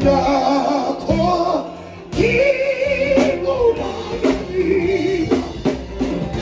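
Live band with a drum kit and a singer performing through a PA system: a voice holding long wavering notes over drum hits that land about once a second.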